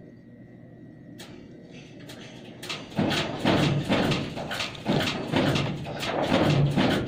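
A single click about a second in, then, from about three seconds in, a person's voice talking loudly.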